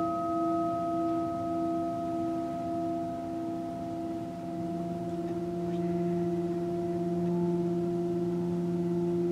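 Singing bowl ringing on after a strike, a few steady tones wavering slightly as they sustain. About halfway through the sound swells again, its low hum growing louder.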